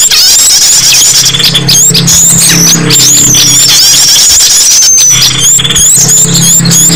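A dense, loud chorus of small songbird calls layered into a bird-lure recording: rapid chirps, trills and sweeping whistles from several birds at once, with a low hum that comes and goes.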